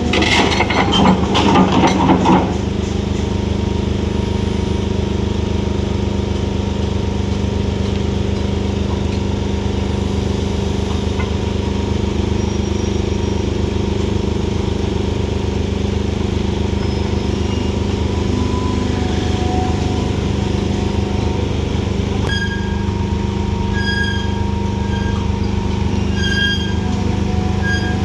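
Heavy diesel construction machinery running steadily, with a burst of metallic clattering in the first couple of seconds. In the last quarter a series of short, high, evenly spaced beeps joins the engine sound.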